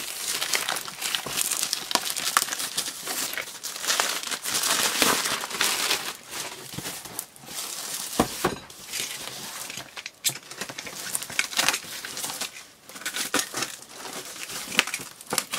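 Thin black plastic wrapping crinkling and rustling as it is pulled off and handled around a boxed toy. There are a few sharp clicks, the loudest about eight seconds in.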